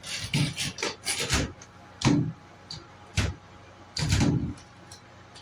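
A run of irregular knocks and clacks from hard objects being handled, with a longer scrape about four seconds in.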